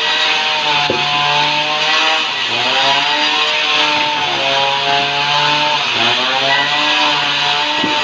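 A band sawmill cutting sengon (albizia) timber: a continuous loud saw hiss. The machine's hum sags in pitch and recovers about four times as the blade takes load.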